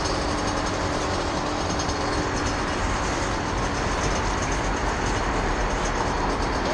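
Two-stroke off-road motorcycle engine running at idle, a steady noise with no revving.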